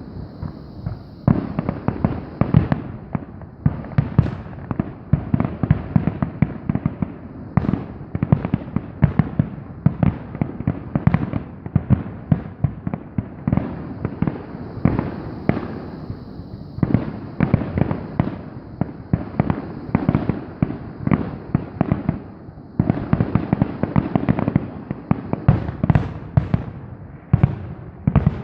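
Fireworks going off in a dense, near-continuous run of sharp bangs and crackles, several a second.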